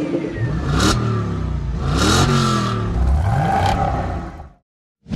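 Car engine revving several times, its pitch rising and falling, with whooshing sweeps over it. It cuts off suddenly a little over four and a half seconds in.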